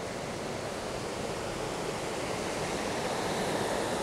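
Steady rush of a mountain river flowing through a rocky canyon below, slowly growing a little louder.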